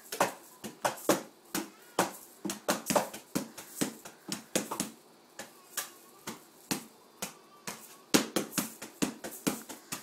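Poi being swung and struck against the hands and body in a quick, uneven rhythm of sharp taps, about three or four a second, coming thicker near the end.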